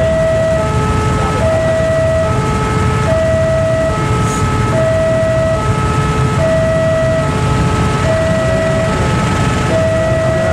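Railway level-crossing warning alarm sounding with the barrier down: an electronic two-tone signal, a higher tone and a fainter lower one taking turns about every 0.8 s without pause, warning of an oncoming train. Beneath it runs a steady low rumble of engines.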